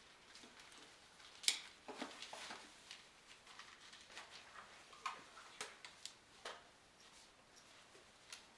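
Faint rustling and a scattered series of short clicks from clothing and patient-monitor cables being handled while the monitor is hooked up to a seated man; the sharpest click comes about one and a half seconds in.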